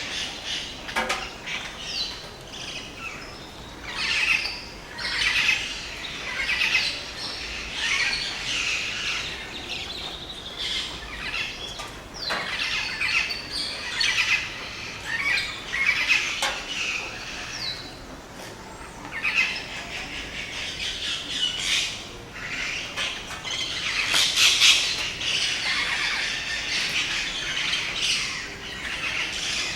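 Dawn chorus of many rainforest birds calling over one another, with harsh squawks among the chirps; it swells louder about three-quarters of the way through.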